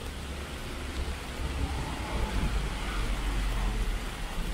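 Steady rain hiss on a city street with traffic. A vehicle's low rumble swells about two seconds in and stays loud through the second half.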